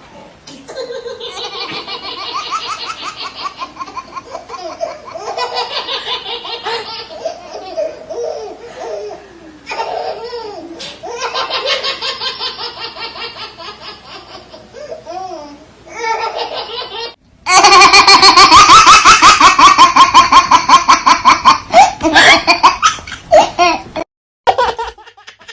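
Young child laughing in repeated runs of rapid, pulsing giggles and belly laughs. About two-thirds of the way through the laughter becomes much louder, then breaks off briefly near the end.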